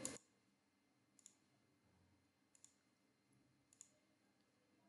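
Near silence broken by three faint computer mouse clicks, a little over a second apart, each a quick press-and-release. They come as line endpoints are placed in a CAD sketch.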